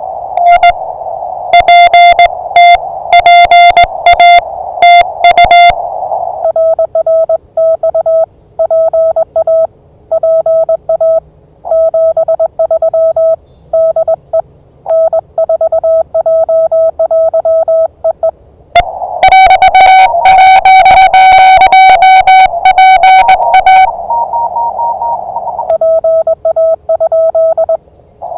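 Morse code (CW) on a ham radio: loud, hard-edged keyed tones for about the first six seconds and again from about nineteen to twenty-four seconds, the activator's own sending heard as sidetone. In between, a received station answers in Morse at a slightly lower pitch over a steady hiss of band noise. Near the end a second, fainter station at a higher pitch briefly overlaps it, as in a pileup.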